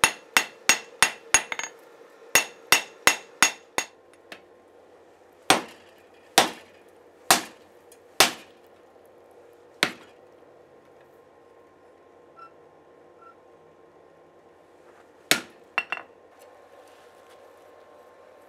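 Smithing hammer striking glowing 80CrV2 steel on an anvil, each blow ringing: a fast run of about three strikes a second for the first four seconds, then five slower, heavier blows about a second apart as the bar is driven down onto a hardy cutter. Near the end comes a single strike and two light metal clinks.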